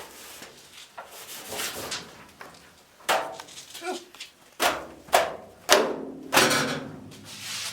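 A series of sharp knocks and clatters of hard objects being handled or set down: one about three seconds in, then four more in quick succession.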